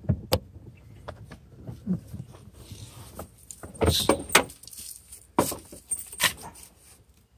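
A removed Honda Civic front seat being lifted and handled. Its steel rails and mounting hardware give scattered metallic clinks and knocks, loudest about four seconds in, with a few more over the next two seconds.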